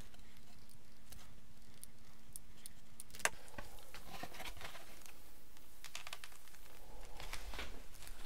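A hot glue gun set down on a wooden bench with one sharp knock about three seconds in. After it come soft scuffing and rubbing of foam board as a glued wing skin is folded over and pressed flat on a cutting mat, growing busier near the end. A faint steady hum runs until the knock.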